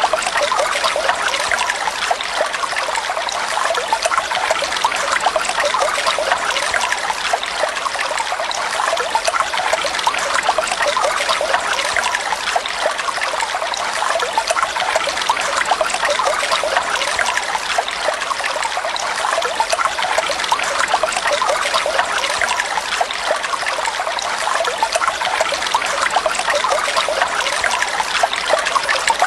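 Water flowing steadily with a fine, continuous trickling and splashing.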